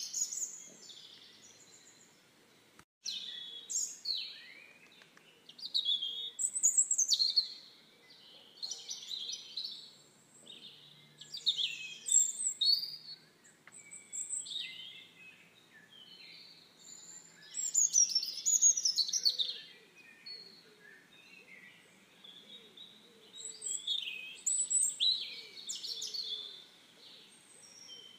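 Songbirds singing: a run of quick, high chirping and warbling phrases every second or two, with short pauses between them. The sound cuts out for a moment about three seconds in.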